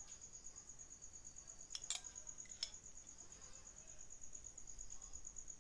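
Steady high-pitched trilling of a cricket, with two light clicks of a spoon against the pot about two seconds in.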